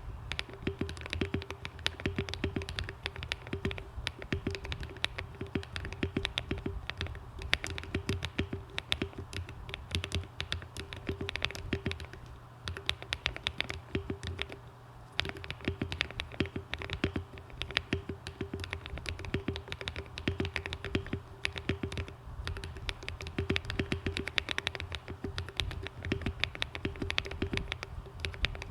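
Continuous fast typing on a Monsgeek M1 aluminium-case mechanical keyboard with hand-lubed Akko Cream Yellow linear switches, ASA-profile keycaps and a tape mod. Rapid overlapping key strokes, with a short lull about halfway through.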